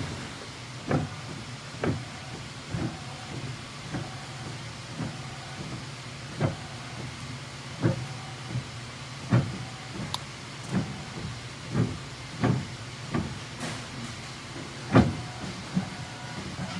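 1989 Heidelberg MOVP sheetfed offset press running slowly: a steady mechanical hum and hiss with a sharp knock about once a second.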